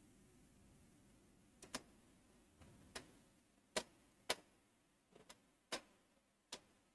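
Near silence broken by about seven faint, irregularly spaced clicks.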